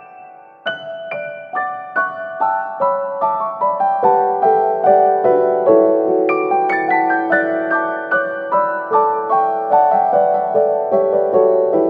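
Background piano music: single notes struck one after another, building into fuller sustained chords about four seconds in.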